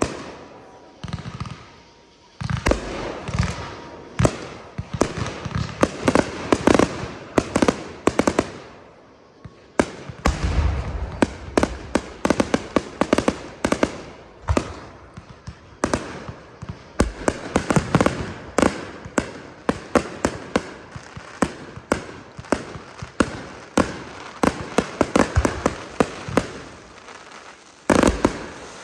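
Aerial fireworks exploding in rapid succession, dozens of sharp bangs and crackles with booming reports, pausing briefly twice and ending in a loud cluster of bursts.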